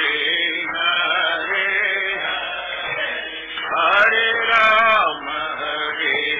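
Voices chanting a Hindu devotional kirtan, sung in a continuous melodic chant.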